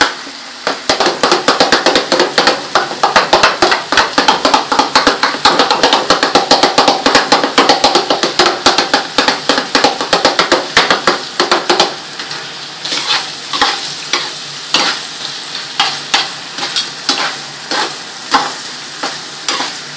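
A spoon scraping and clacking against a pan in quick, steady strokes while goat offal sizzles over a high flame, its cooking liquid boiling off. About twelve seconds in, the strokes slow to sparser taps.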